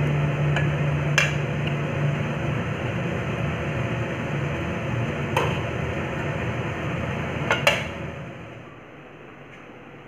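Steady hiss of curry cooking in a steel kadai on a gas stove, with three sharp metallic clinks of utensils against the pan, the last a quick double clink. The hiss drops away about eight seconds in.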